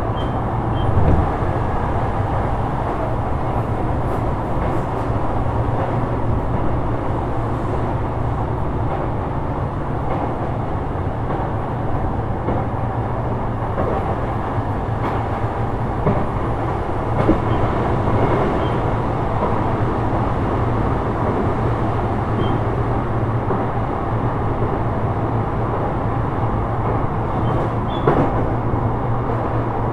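Sotetsu 12000 series electric train (Mitsubishi IGBT-VVVF) running at speed, heard from inside the car: a steady rumble of wheels on rail with a few louder knocks from rail joints, about 1, 16, 17 and 28 seconds in.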